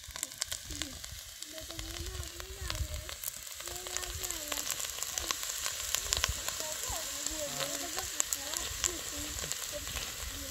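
Chopped vegetables frying and sizzling in oil in a metal pot over a wood fire: a steady hiss dotted with many small pops and crackles.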